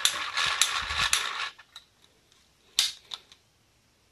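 Rapid clicking and clattering of a helicopter model's tower being pushed and seated into its launch base, with a few dull handling knocks, lasting about a second and a half. Two sharp single clicks follow about three seconds in.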